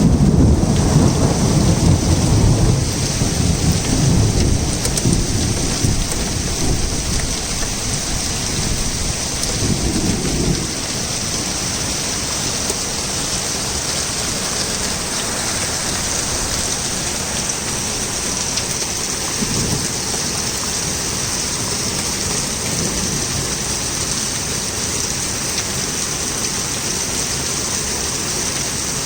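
Torrential rain falling steadily, with a long roll of thunder rumbling loudly at first and dying away about ten seconds in; a faint short rumble follows later.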